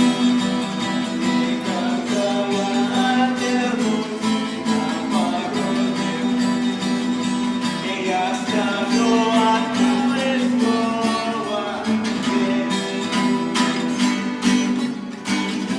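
Acoustic guitar strummed in a steady rhythm, playing a rock song's chords.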